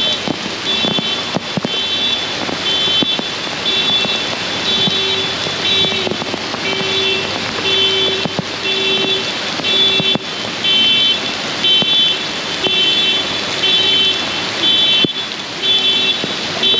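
Heavy rain hissing steadily while a car alarm sounds its horn in a steady pulse, about two blasts a second.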